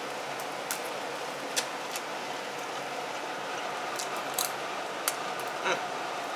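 Cutlery clinking and scraping against a plate while eating: a handful of light, sharp clicks scattered over a steady background hiss.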